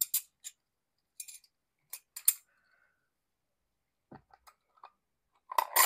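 One-ounce silver bars clinking against each other as gloved hands handle the stack: a string of short, sharp metallic clinks, the loudest about two seconds in. A few duller knocks come about four seconds in, and a quick cluster of clinks near the end.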